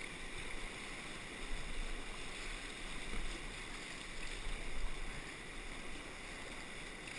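Rushing, churning river water of a rapid around an inflatable catamaran's pontoons as it runs through the whitewater.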